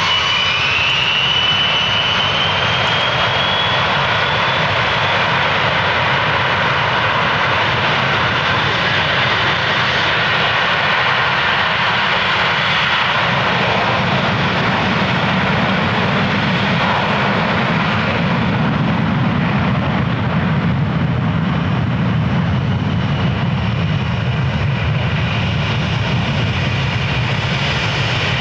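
Douglas DC-8-62F's four JT3D turbofan engines at takeoff power, loud and steady. A high whine rises in pitch over the first few seconds; from about halfway the sound turns deeper as the high hiss fades.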